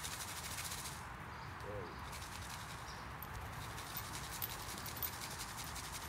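Steady outdoor background noise with faint, high bird chirps now and then and one short, low call about two seconds in.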